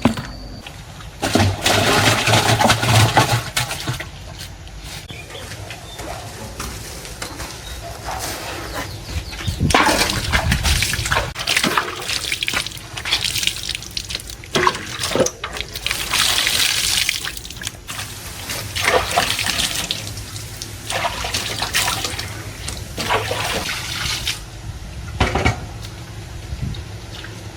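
Water splashing and sloshing in irregular bursts, with several louder splashes over a steady hiss.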